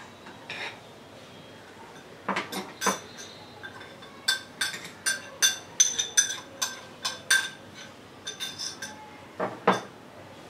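A metal spoon clinking and knocking against glass bowls while stirring a semolina batter and tapping out a small glass bowl: a few knocks, then a quick run of ringing clinks for about three seconds, then scattered taps and one louder knock near the end.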